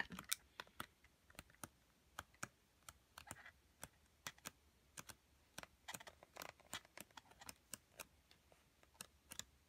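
Patterned paper sheets of a Craft Smith Mint Pink paper pad being flipped with a thumb: a faint, irregular string of soft clicks and brief rustles as each sheet lets go and falls.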